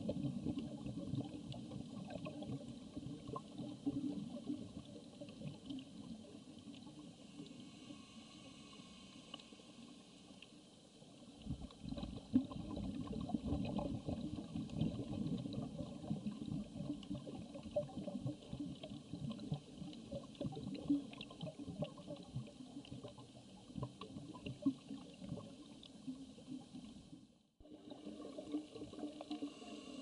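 Underwater ambience picked up through a camera housing on a reef dive: a steady wash of water noise full of fine crackles, swelling and easing. It cuts out briefly near the end.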